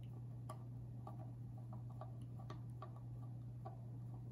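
Small screwdriver turning screws into a metal retaining plate, threading them into brass inserts: faint, irregular light clicks and ticks of the blade in the screw heads. A steady low hum runs underneath.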